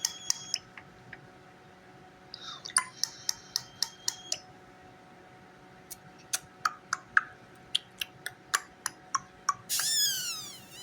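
Pet starling making sharp kissing smacks in irregular runs, with a thin steady whistle held under them twice. Near the end comes a loud burst of quickly falling whistles.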